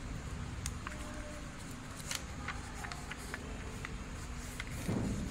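Sheet of origami paper crinkling and crackling as it is folded and creased by hand, in scattered small ticks over a steady low hum. There is a soft thump about five seconds in.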